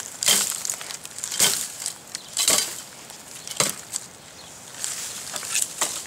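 Cold Steel Special Forces shovel's sharpened steel blade chopping into dry ground, about one strike a second: four hard strikes, then lighter ones near the end.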